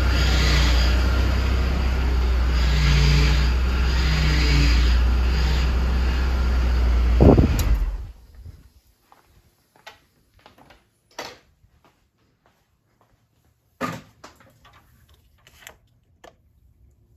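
Hummer H3 engine running with its power steering pump making a horrible noise that swells and eases a few times, a sign of air in the power steering fluid after a pump replacement that was not fully bled. About seven seconds in the engine is switched off and the noise stops abruptly, leaving only a few faint clicks and knocks.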